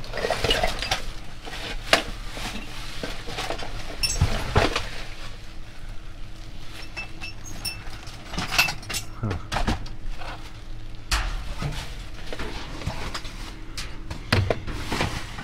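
Hard objects clinking, clattering and knocking against each other at irregular intervals as junk is rummaged through in a dumpster.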